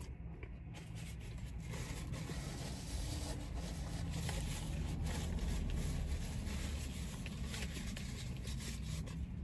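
Eating close to the microphone: a burger's paper wrapper rustling and crinkling with chewing, a dense run of small crackles that picks up about a second in, over a steady low hum.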